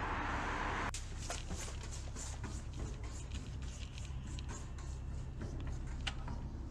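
Quick footsteps of a person running, starting about a second in as a series of sharp, irregular steps, over a low, steady background music drone.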